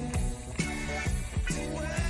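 A song playing, with a steady drum beat of about two beats a second.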